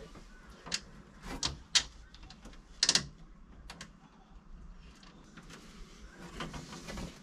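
Small hardware and a thin polycarbonate panel being handled as a screw, washer and lock nut are fitted by hand: a handful of separate sharp clicks and taps, the loudest about three seconds in, then a faint rustling near the end.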